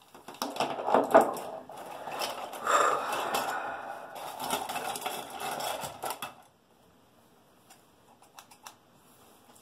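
Clattering and rattling of small objects being rummaged through and handled, with many quick clicks and knocks, stopping after about six seconds; a few faint clicks follow near the end.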